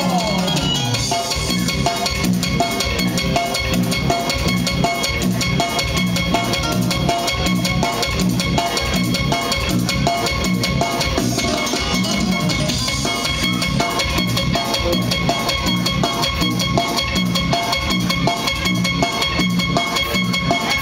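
Dance music played loudly over a sonidero's sound system, led by a steady, even drum-kit beat with bass drum and snare.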